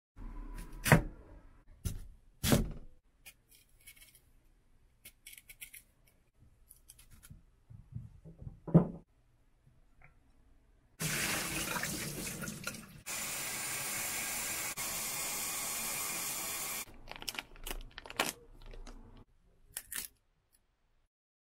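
Kitchen tap water running into a glass bowl of cut sweet potatoes in a stainless steel sink, starting about halfway through and running steadily for about six seconds. A few sharp knocks come before it and small handling clicks after it.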